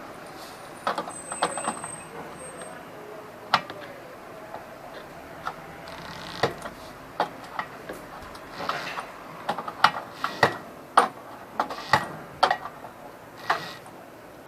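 Scattered sharp metallic clicks and knocks of tools and parts being handled while working on a reach-in cooler's compressor mounting, more frequent in the second half.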